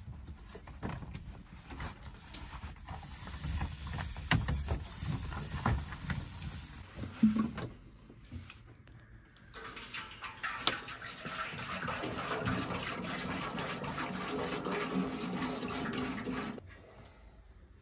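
Stiff paper crinkling and rustling as it is spread out, then, about ten seconds in, water pouring from a plastic jerrycan into a metal basin, running steadily for several seconds and stopping shortly before the end.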